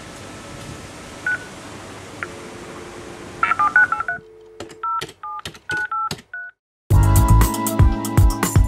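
Telephone touch-tone (DTMF) beeps over a hiss: a quick string of dialling tones about three and a half seconds in, a short low tone, then several separate key tones. Music with a beat starts abruptly about seven seconds in.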